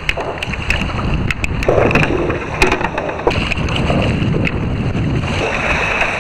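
Kayak paddle strokes splashing through choppy water, with wind buffeting the microphone and a few sharp clicks in the first few seconds.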